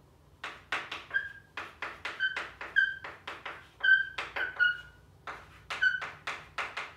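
Chalk writing on a chalkboard: a quick series of tapping, scratching strokes, many ending in a short high squeak.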